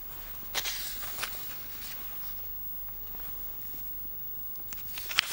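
Sheets of paper rustling and being shuffled on a desk: a rustle about half a second in and again near the end with a few light ticks, and faint room tone in between.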